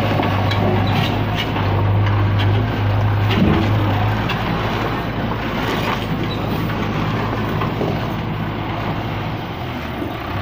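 Heavy diesel engine running at idle: a steady low hum that is strongest for the first few seconds, then eases a little.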